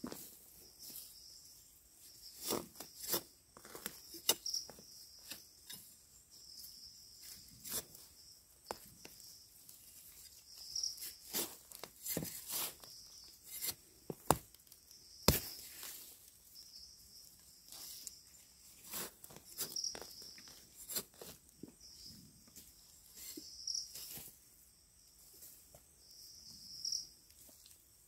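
Insects trilling in a steady high band that swells now and then, over scattered crackles and snaps of dry leaves, soil and mushroom stems as termite mushrooms are pulled up by hand from the forest floor. The sharpest snap comes about halfway through.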